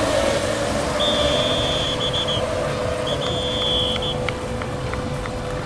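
RC racing boats running at speed on the water: a steady motor whine over a wash of water and wind noise. Two high-pitched tones, each about a second long, sound about a second in and again about three seconds in, and a few light clicks follow.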